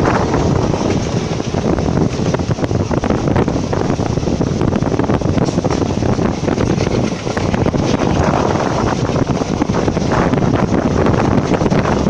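Wind buffeting the microphone held out of a moving passenger train, over the train's steady running noise on the track. The sound is loud and even, with no clear rhythm of wheel beats.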